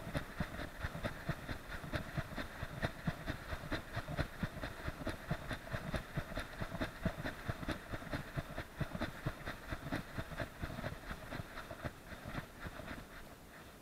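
A dog running through dry grass, heard through an SJ4000 action camera strapped to its chest harness. Its strides jostle the camera in a steady rhythm of about three thumps a second, with grass brushing past. The thumping eases and quietens near the end.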